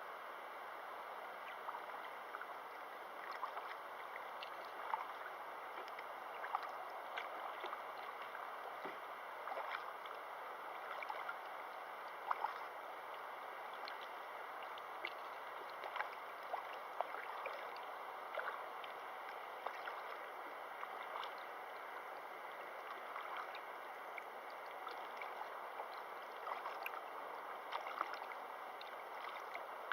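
River water running and babbling over rocks: a steady rushing hiss broken by frequent small, irregular splashes and plinks.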